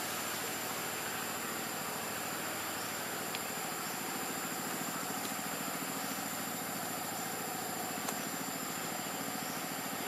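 A steady engine-like hum running without change under constant outdoor background noise, with a faint click about three seconds in and another about eight seconds in.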